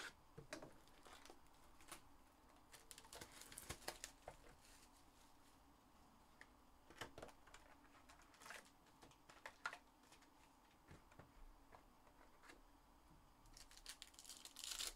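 Faint clicks, taps and crinkles of a trading-card hobby box being opened and its foil-wrapped packs handled, with denser bursts of crackling a few seconds in and again near the end.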